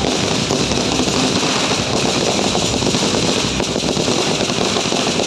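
A string of firecrackers going off in a fast, continuous crackle, cutting in as the band's music stops.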